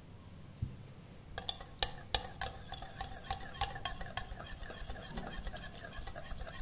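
Wire whisk beating a curd mixture in a glass mixing bowl: rapid clinking of the wires against the glass, starting about a second and a half in.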